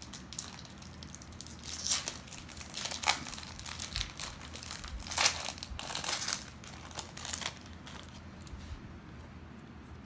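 Plastic wrapper of a Pokémon TCG mini booster pack crinkling and tearing as it is opened, in several bursts of rustling over about six seconds.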